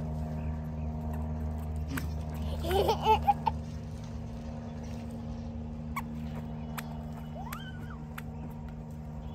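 A toddler giggling in a short burst about three seconds in, over a steady low hum.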